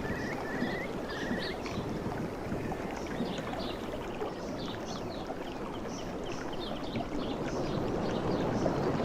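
Steady wash of sea surf with small birds chirping high over it; a bird's short call repeats several times in the first second and a half. The surf swells a little near the end.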